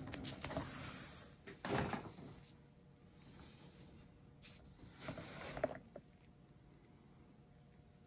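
A rushing, whooshing noise from the spinning canvas turntable, fading within the first second or two. Then a couple of light knocks of handling: one a little under two seconds in, a cluster around five seconds. After that only quiet room tone.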